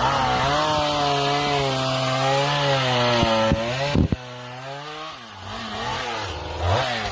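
Gas chainsaw running under load, cutting firewood, its engine note wavering up and down. A sharp knock comes about four seconds in, and about a second later the engine note drops lower and quieter as the saw eases off.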